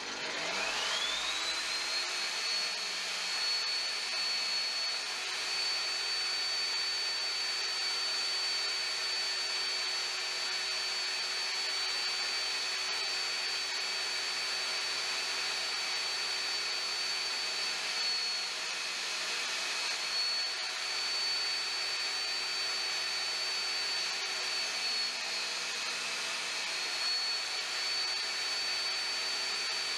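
Table saw motor spinning up, its whine rising over about two seconds, then running steadily with a diamond cup wheel on its arbor while the front faces of saw-blade teeth are ground on it. The whine dips briefly a few times later on.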